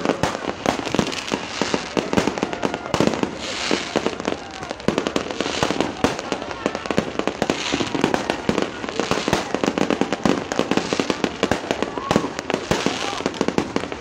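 Fireworks display: a dense, unbroken barrage of bangs and crackles from many shells bursting at once.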